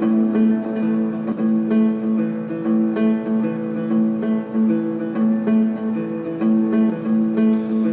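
Background music: plucked acoustic guitar playing a steady, repeating pattern of notes.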